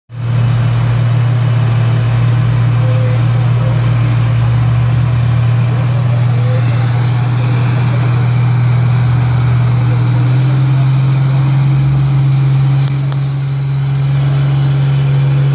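Off-road vehicle's engine running steadily, a low drone that steps up slightly in pitch about ten seconds in.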